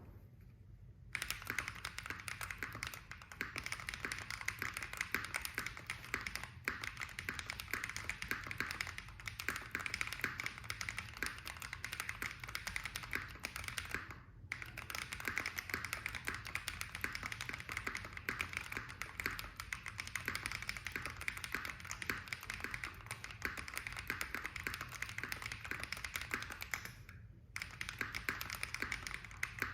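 Fast, continuous typing on a custom mechanical keyboard: Tofu65 acrylic case, brass plate, Holy Panda tactile switches lubed with Krytox 205g0, Cherry screw-in stabilizers, on a desk mat. The keystrokes start about a second in and run as a dense stream of clacks, with two brief pauses, one in the middle and one near the end.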